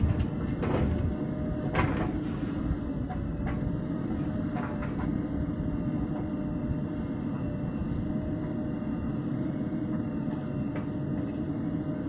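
JCB 3DX backhoe loader's diesel engine running steadily as the backhoe arm works, with a few knocks and clunks in the first five seconds as the bucket drops soil into a tractor trolley.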